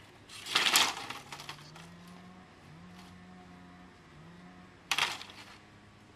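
Two short bursts of rattling clatter of hard objects knocked or dropped together, about four seconds apart, the first longer and louder.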